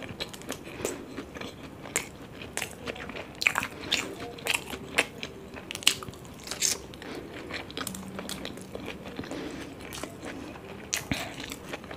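Close-up eating sounds: crunchy bites and chewing, with irregular sharp crackles throughout.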